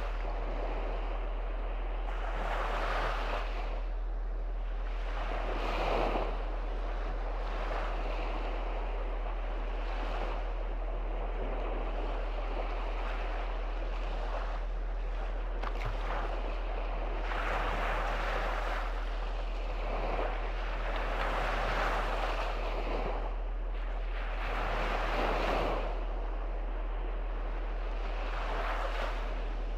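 Small waves of the Baltic Sea breaking and washing up a sandy beach, the wash swelling every few seconds as each wave comes in, over a steady low rumble.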